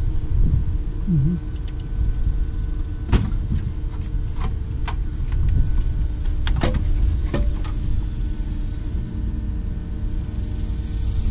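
Plastic intake plenum knocking and clicking against the engine as it is worked free and lifted out: a handful of sharp knocks, two close together about two thirds of the way in, over a steady low rumble.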